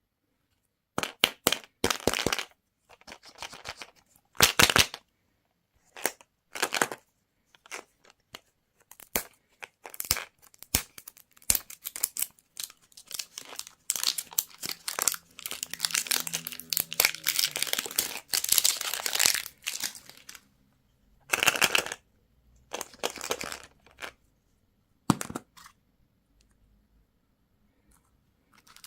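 Candy wrappers being torn open and crinkled in short bursts with sharp clicks, and a longer run of crinkling through the middle.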